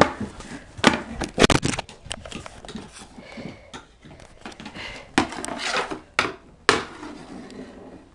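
Knee hockey play on a hard floor: mini hockey sticks clacking and knocking against the floor and each other in a run of irregular sharp clicks, with quicker clusters about a second in and again around five to seven seconds in.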